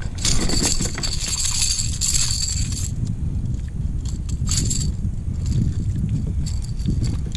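Clinking and rattling from gear being handled in a kayak: one burst of about two and a half seconds near the start and a shorter one midway, over a steady low rumble.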